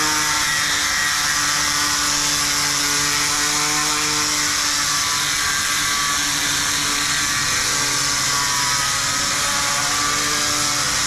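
Electric disc sander (angle grinder) with a 60-grit sanding disc running and pressed onto an aluminium weld to sand it flat: a loud, steady hiss of abrasion over the motor's whine, which shifts slightly in pitch a few times.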